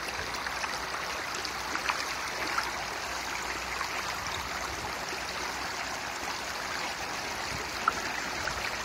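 A shallow stream running steadily over rocks and stones, with a few faint brief clicks.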